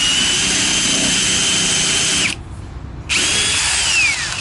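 Power drill pre-drilling into the corner of a birch plywood cabinet: a high motor whine held steady for about two seconds, a short stop, then a second run that winds down in pitch as the trigger is released.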